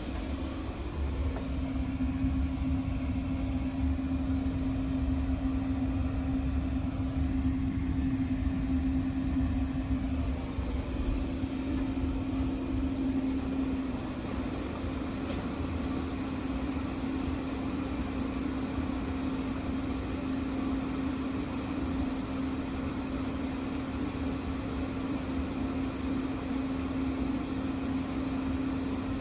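Steady machine hum: a constant droning tone over a low rumble, with one faint tick about halfway through.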